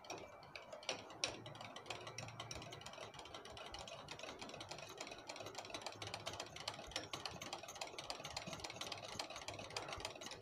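Wire whisk beating thick mango shrikhand in a bowl, its wires ticking rapidly against the bowl in a fast, steady, faint rhythm while the mixture is whipped fluffy.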